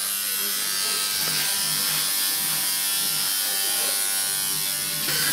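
Electric tattoo machine buzzing steadily while its needle works ink into skin.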